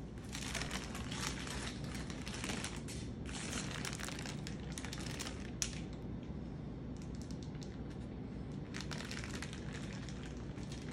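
Parchment paper crinkling and rustling quietly as it is peeled off a baked sponge cake, with one sharp click a little past halfway.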